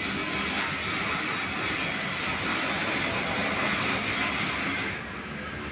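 Steady rushing background hiss with no distinct events; its highest, hissing part drops away suddenly about five seconds in.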